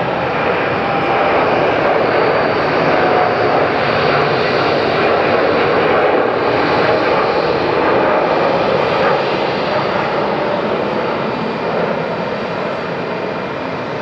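Boeing 787-8 Dreamliner's twin GE GEnx-1B turbofans at takeoff thrust as the airliner rolls, lifts off and climbs away. The jet noise is loud and steady, with a faint high whine on top, and eases slightly over the last few seconds.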